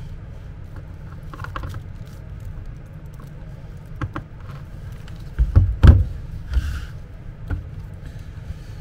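Handling noise from a plastic control box and its cords: cables dragged over a table, with scattered clicks and knocks of plastic as the box is set down and a plug is pushed into its socket. The loudest knocks come about five and a half to six seconds in.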